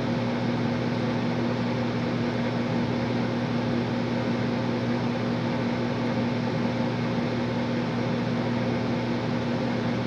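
Old Janitrol gas furnace's draft inducer fan running with a steady hum, during the start-up sequence before the burners light.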